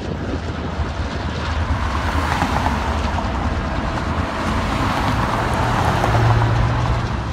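Diesel locomotives running past with a steady low rumble. A pickup truck drives by close about six seconds in, the loudest moment.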